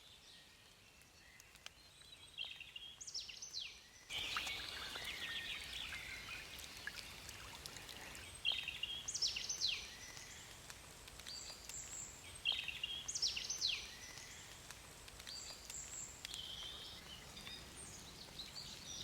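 Woodland birdsong: a songbird repeats a short phrase, a brief twitter ending in quick falling whistles, about every four seconds. Beneath it a soft steady hiss of light rain, which gets louder about four seconds in.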